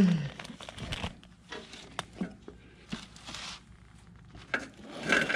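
Motorcycle roller chain being handled and pulled through by hand: scattered light clicks and brief rustles.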